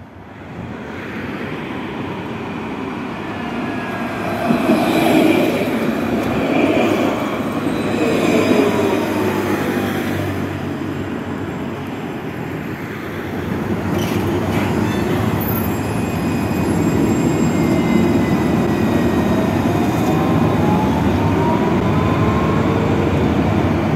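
Alstom Citadis 302 low-floor tram running on street track, its wheels rumbling on the rails. Its electric motor whine falls in pitch as it slows into the stop, and a rising whine comes near the end.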